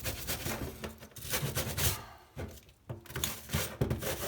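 Brush scrubbing a grimy bicycle V-brake in a sink, in irregular strokes, with a few light knocks of the part against the sink.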